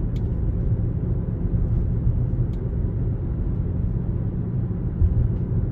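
Steady low road and tyre rumble inside the cabin of a 2021 Toyota RAV4 Hybrid driving over bumps, with a couple of faint clicks and a low thump about five seconds in. The thump is the intermittent clunk that the owner suspects comes from a loose mount.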